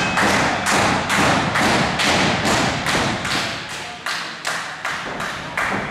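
A steady rhythm of sharp thumps, a little over two a second, slowing slightly and growing fainter near the end.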